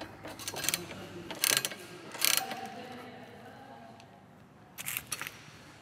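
Ratcheting wrench clicking as it runs a bolt in, with a few sharper metal clicks and knocks scattered through it.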